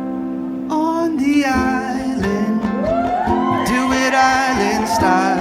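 Live music: a man singing a gliding, drawn-out melody over guitar chords.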